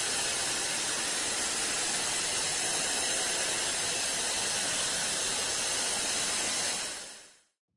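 Television static: a steady hiss of white noise, fading out near the end.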